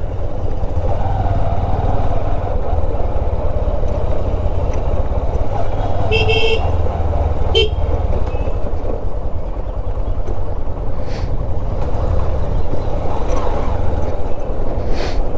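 125 cc Honda motorcycle running steadily at low speed, its engine and wind noise rumbling heavily, with a short horn beep about six seconds in and a briefer one a second and a half later.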